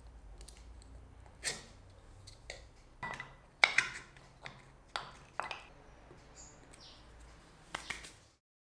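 Scattered light clicks and knocks, about ten in all, from handling turned wooden grinder bodies and pressing cut plugs into their holes on a workbench, over a faint steady hum. The sound drops out near the end.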